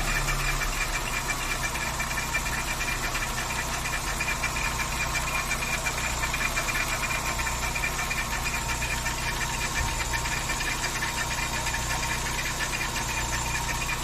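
Volkswagen AP 1.6 four-cylinder engine idling steadily with the valve cover off, with a rapid, even knocking running through it. The top of the head is working normally; the owner suspects the noise comes from the timing belt or a pulley.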